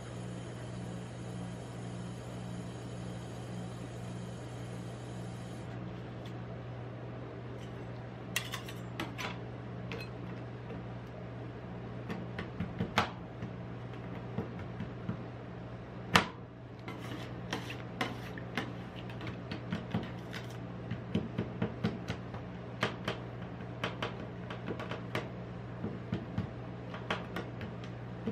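Two steel spatulas tapping and scraping on a steel cold plate as chocolate pieces are chopped into an ice cream base. The blows come as irregular sharp clicks that start about a third of the way in and grow busier towards the end. Underneath runs a steady low hum.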